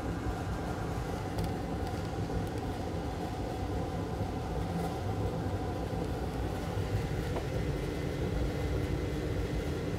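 Steady low machine hum of a workshop room, with a couple of faint light clicks as the opened laptop is handled.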